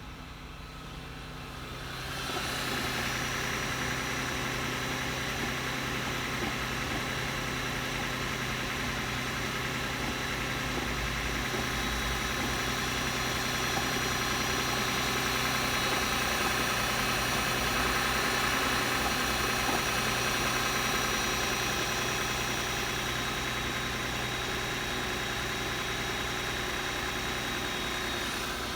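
Lexus GS450h's V6 petrol engine running steadily during a cold start, with a weird noise from under the car that the owner thinks could be cam or oil-pumping noise typical of cold start. The sound swells in about two seconds in, carries several steady whining tones, and fades out near the end.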